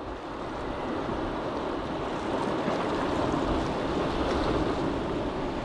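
Sea surf washing on the shore: a steady rush of water that swells a little about three seconds in, then eases.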